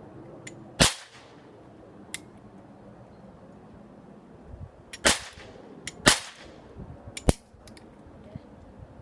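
Toy cap gun firing caps: four sharp cracks, one about a second in and three more in quick succession later on, with fainter clicks of the mechanism between them.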